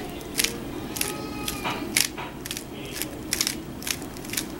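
Aolong v2 3x3 speed cube being turned fast by hand through an F perm algorithm: a brisk, irregular run of sharp plastic clicks and clacks as the layers snap through their turns.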